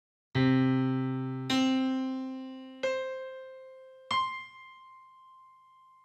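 Four struck, piano-like keyboard notes from an unprocessed sound clip, about 1.3 seconds apart, each an octave higher than the one before. Each note starts sharply and fades, and the last, highest one rings on faintly near the end.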